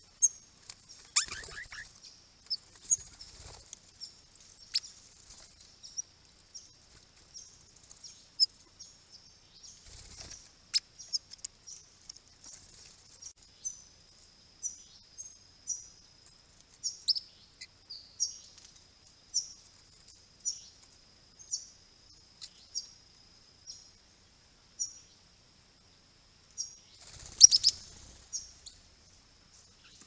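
Small birds at a pond: short, high chirps repeating about once a second over a steady faint high tone. Now and then there are louder bursts of wing flutter, the loudest near the end.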